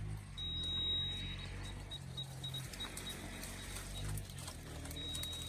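Borewell drilling rig running steadily: a low engine hum with a thin high whine that cuts in and out.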